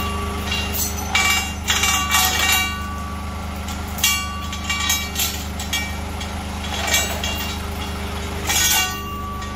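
A diesel engine idling steadily, with several short bursts of metallic rattling and clinking from a steel chain being handled against steel forks and frame.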